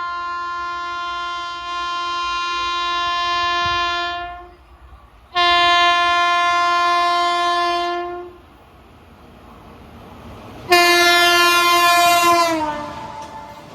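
Indian Railways electric locomotive's air horn sounding three long blasts: the first is already sounding and ends about four seconds in, a second follows after a short gap, and a third, loudest and brightest, comes near the end and slides down in pitch as it fades.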